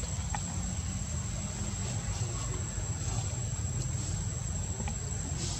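Insects, crickets or the like, holding one steady high-pitched drone over a steady low rumble, with a few faint ticks.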